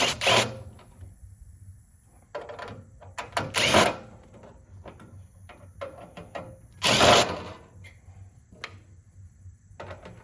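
A cordless drill with a 1/4-inch nut driver running in three short bursts of about half a second each, backing screws out of a radiator's sheet-metal frame, with small clicks and clatter of metal parts between bursts.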